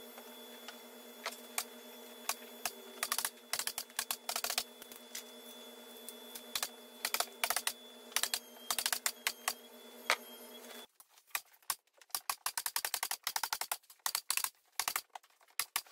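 Pneumatic staple gun fired in quick runs, each staple a sharp snap into corrugated cardboard, in clusters of several shots with short pauses between. A steady hum underneath stops abruptly about eleven seconds in.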